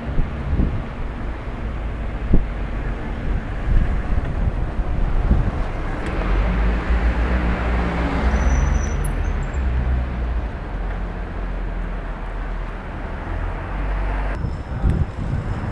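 City street traffic heard from a moving bicycle: a steady rumble of passing cars, with one engine passing louder through the middle.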